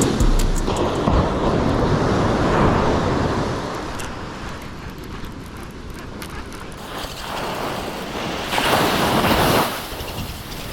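Ocean surf washing on a beach, with wind buffeting the microphone. A louder surge of breaking wave comes about nine seconds in.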